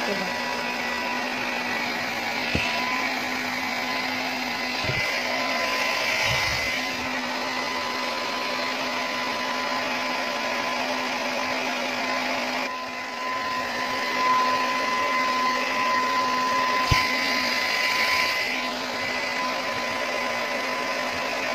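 Handheld hair dryer running steadily, blowing on hair wound over a round brush, a constant whine over the rush of air. A few light knocks sound through it.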